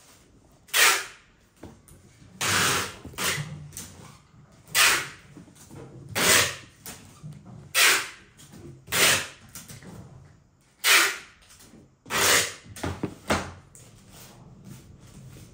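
Handling noise from a leather sneaker being turned and held in the hand close to the microphone: a dozen or so short rustling scrapes, roughly one a second, dying down near the end.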